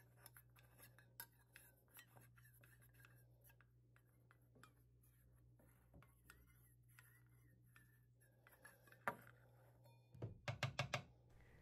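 Faint clicks and scraping of a toothbrush swirled in a small stainless steel bowl of rubbing alcohol, ending in a quick run of about six sharp taps against the bowl, over a low steady hum.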